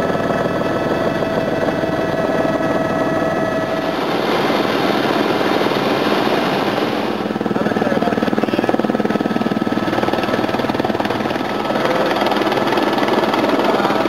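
Turbine helicopter running in flight, heard from inside the cabin: a steady whine over the rapid beat of the rotor.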